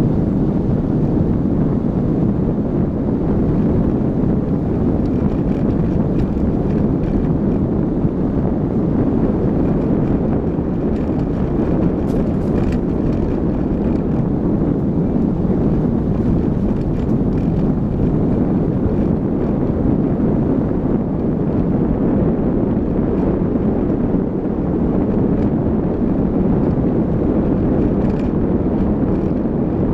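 A car driving along a gravel dirt road: a steady rumble of road and running noise, with wind buffeting the microphone.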